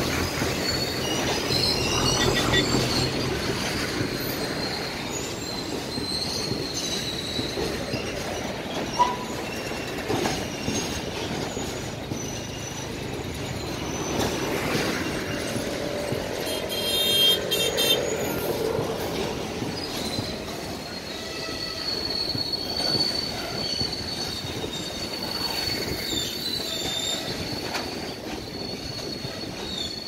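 A long rake of BCNA covered freight wagons rolling past. The wheels squeal with a high-pitched whine that comes and goes.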